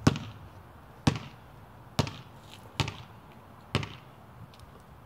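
A basketball being dribbled on a concrete court: five single bounces, about one a second.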